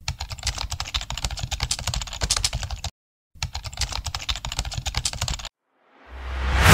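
Computer keyboard typing sound effect: rapid key clicks in two runs, about three seconds and two seconds long, with a short pause between. A rising whoosh swells near the end.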